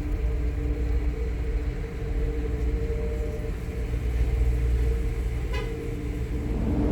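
Steady low rumble with a constant hum, from a car on or entering a ferry's vehicle deck, with one short click about five and a half seconds in.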